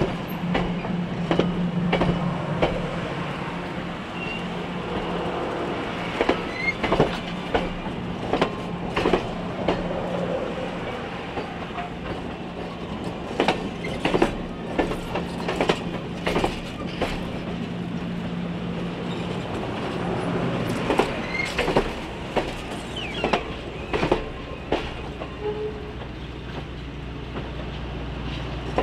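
Excursion train's passenger cars rolling past, their wheels clicking over rail joints in irregular clicks, often in close pairs. A steady low hum runs underneath and fades about two-thirds of the way through.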